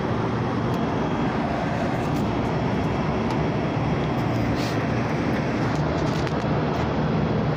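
Steady mechanical drone with a low hum, with a few faint light clicks scattered through it.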